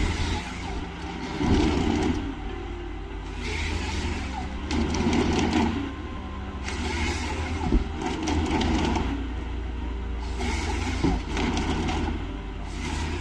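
Heavy machinery working: a steady low engine drone with loud rough surges of grinding noise about every two seconds.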